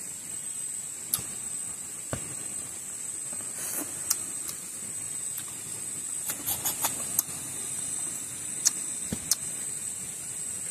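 A man eating with his hands and mouth close to the microphone, gnawing buffalo meat off a bone and chewing, heard as scattered sharp mouth clicks and smacks, with a quick run of them a little past the middle. A steady high insect drone runs underneath.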